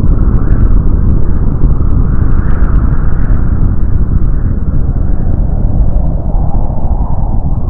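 Nuclear explosion sound effect in its long aftermath: a loud, continuous deep rumble with scattered crackles that thin out after about three seconds.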